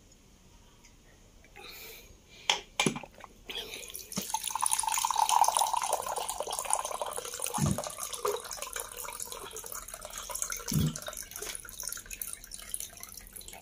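Water running from a plastic water dispenser's tap into a drinking glass, a steady splashing pour that starts about four seconds in after a couple of sharp clicks. Two low thumps come partway through the pour.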